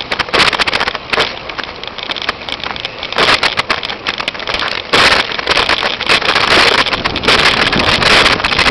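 Wind rushing over a small camera's microphone as it moves along a street on a pedicab, with irregular crackles and knocks running through it.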